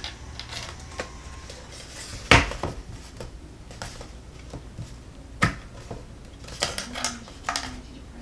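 Hard plastic parts of a multimeter case being handled and pressed into place: a sharp click about two seconds in, another about five seconds in, then a few lighter clicks and taps.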